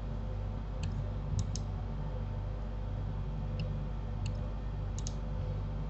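About seven sharp computer mouse and keyboard clicks, some in quick pairs, over a steady low electrical hum.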